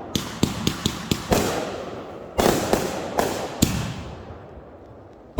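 Fireworks going off: a quick run of sharp bangs in the first second, then several louder booms, each trailing off, dying away near the end.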